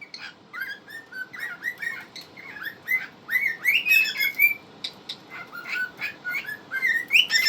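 Two male cockatiels singing together: a continuous run of short chirps and whistled notes that glide up and down in pitch.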